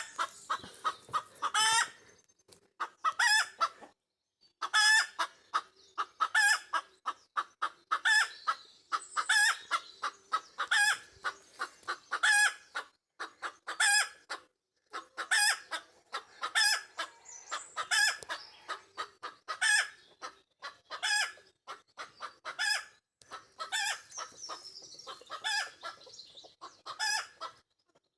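Pekin bantam hen singing the egg song: runs of quick clucks, each capped by a louder, drawn-out squawk, repeating about every one and a half seconds.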